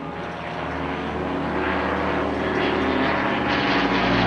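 Single-engine propeller plane's engine droning and growing steadily louder as it approaches and passes low overhead.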